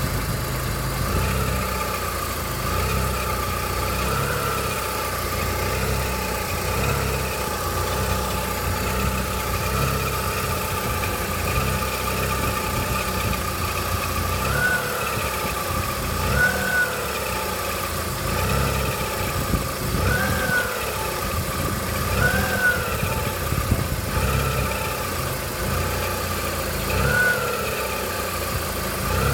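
Mitsubishi Galant engine idling with a steady high whistle from under the hood; the whistle briefly rises and falls in pitch several times in the second half.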